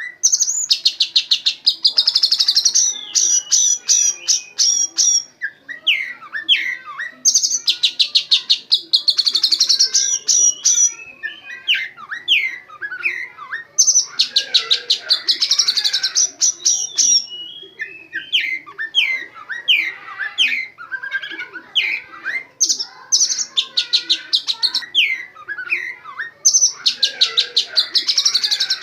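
Oriental magpie-robin (kacer) singing a song full of imitated white-rumped shama 'tembakan' phrases. Bursts of very rapid high-pitched repeated notes, each lasting two to three seconds, come about five times and alternate with short sliding whistles.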